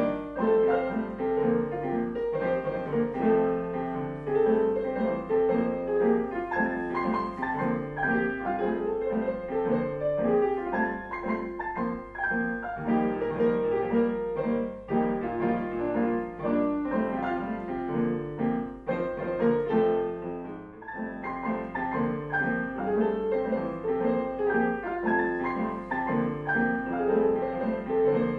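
Piano music: melody and chords played without a break, apart from a short pause in the sound about twenty seconds in.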